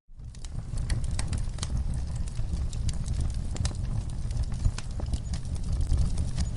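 Wood fire crackling in a fireplace: a steady low rumble of flames with frequent sharp, irregular pops and snaps. The sound cuts out for an instant at the very start, then fades back in.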